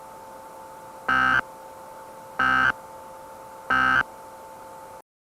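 Three short electronic data bursts of an Emergency Alert System end-of-message signal, each about a third of a second long and about 1.3 seconds apart, over a steady two-note hum and hiss. Everything cuts off abruptly about five seconds in.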